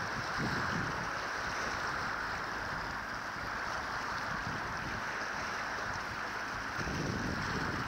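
Wind blowing across the microphone and choppy water washing against the shore rocks: a steady rushing noise, with heavier wind buffets about half a second in and again near the end.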